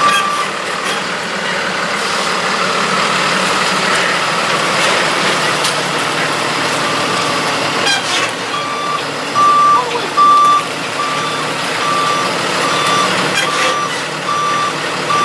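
Work truck's backup alarm beeping steadily at about two beeps a second while the truck reverses, over its running engine. The beeping stops shortly after the start and resumes about eight and a half seconds in.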